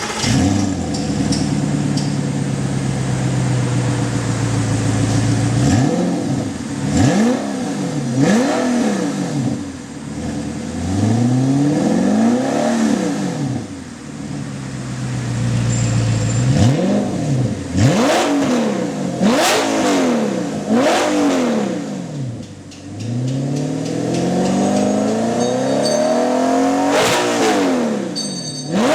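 Audi R8's V8 running through an Armytrix titanium exhaust: idling steadily, then blipped in a series of quick revs that climb and drop sharply, settling back to idle between bursts, with a few longer revs near the end.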